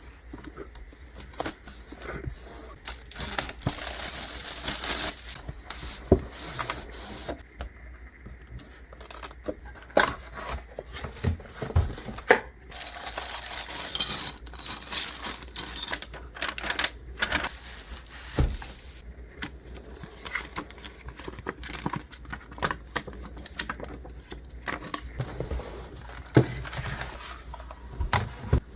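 A new mechanical keyboard being unboxed: cardboard box and plastic packaging opened and handled, with tearing and crinkling and scattered knocks and clicks.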